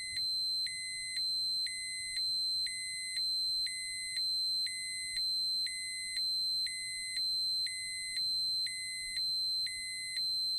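Electronic beeping, a short beep about every two-thirds of a second, over a steady high-pitched tone.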